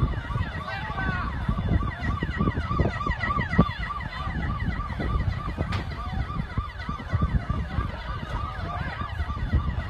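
Emergency vehicle sirens running in a fast yelp, a rising-and-falling tone repeating about three times a second, with further siren sweeps layered over it. A steady low rumble sits underneath.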